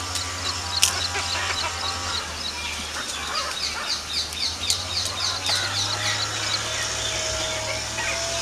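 A bird calling in a quick repeated series of high chirps, about two a second, fading out about two thirds of the way through, over a low steady hum.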